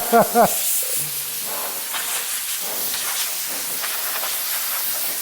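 Compressed-air blow gun hissing steadily.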